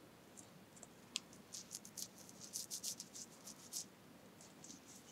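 Faint rustling and scratching of fingers working through the hair and lace of a lace front wig, a quick run of soft scratches through the middle.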